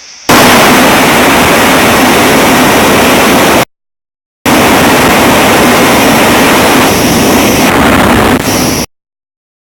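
Very loud, harsh hiss spread across all pitches, cutting off abruptly into dead silence twice, for almost a second each time.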